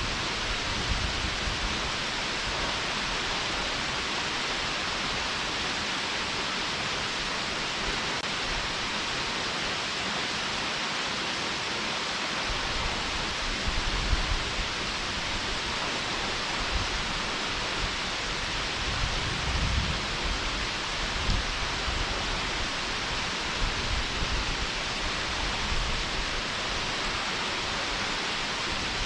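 Mountain stream flowing near a waterfall: a steady, even rush of water, with a few brief low rumbles now and then.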